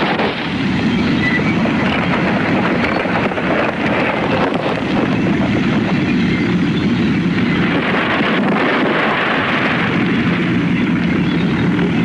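Bulldozer engine running steadily.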